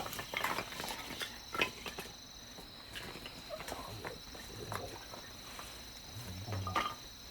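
Wood fire crackling in an outdoor fire pit, with scattered sharp pops and snaps, over crickets chirping steadily. A few dull low knocks near the end.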